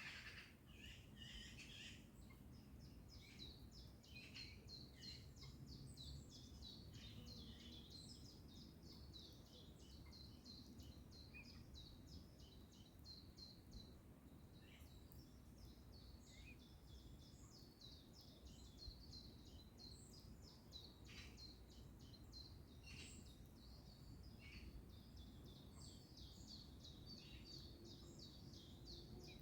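Faint chorus of small songbirds: an unbroken stream of rapid high chirps and trills, with now and then a short call sweeping downward in pitch.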